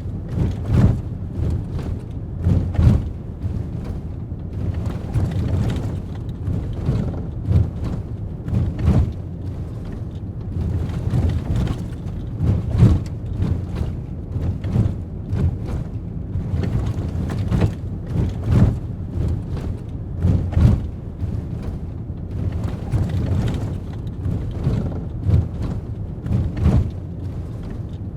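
Ford Raptor pickup truck's engine and exhaust rumbling deep and low, with irregular swells and sharp peaks every second or two.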